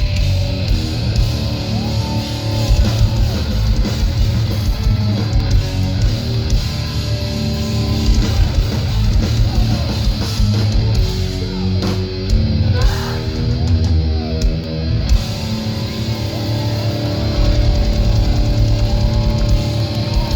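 Live heavy metal band playing loud, with distorted guitars, bass and a drum kit, recorded from the crowd.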